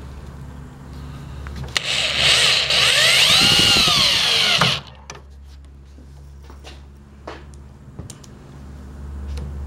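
Power drill driving a screw into pallet wood for about three seconds, its motor pitch rising and then falling as the screw seats, then a few light taps.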